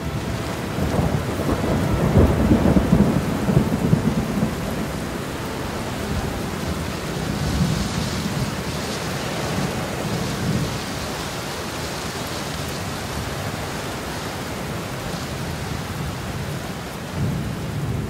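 Thunderstorm: steady rain with a long roll of thunder, loudest a few seconds in, and a shorter rumble near the end.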